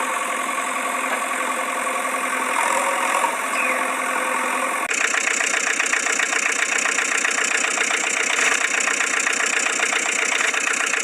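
Vehicle engine idling steadily, cut sharply about five seconds in to a different engine sound with a fast, even pulse.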